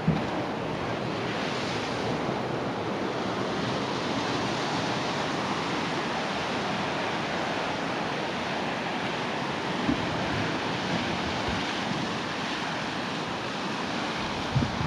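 Small waves washing onto a sandy beach with wind rushing over the microphone, a steady seaside noise, broken by a few brief thumps.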